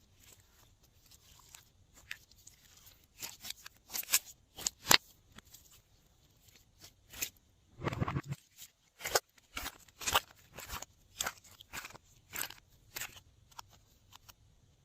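Glossy slime being worked by hand, giving off irregular sticky clicks and pops, with one longer, fuller squelch about halfway through.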